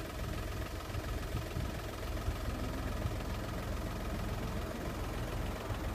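Steady distant jet rumble of a B-2 Spirit stealth bomber's four turbofan engines on its landing approach, with a flickering low buffeting of wind on the microphone.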